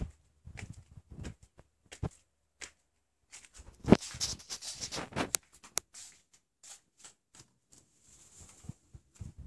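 Footsteps on a tiled floor and small handling clicks. About four seconds in, a sharp knock and a second or so of rolling hiss as a sliding glass patio door is pushed open. Near the end, a soft swish as a sheer curtain brushes past.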